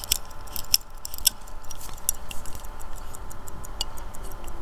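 Mechanical pocket watch close to the microphone: a quick run of small, sharp clicks and ticks.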